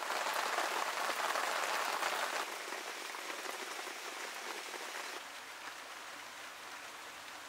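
Steady rain falling on wet metal railings, louder for the first two seconds or so, then softer, and dropping again about five seconds in.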